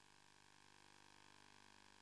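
Near silence: a faint, steady electrical hiss and hum.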